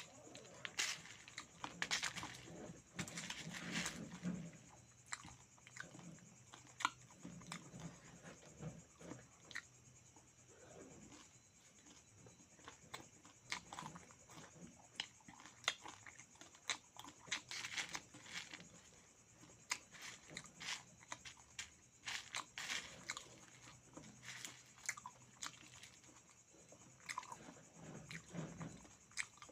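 A person chewing and biting meat and beaten rice (chiura) close to the microphone, with many short crunches and clicks at an uneven pace.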